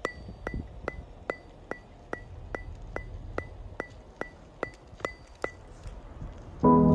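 Footsteps crunching and squeaking in cold, packed snow, a brisk walk of about two and a half steps a second, stopping shortly before the end. Piano music comes in near the end.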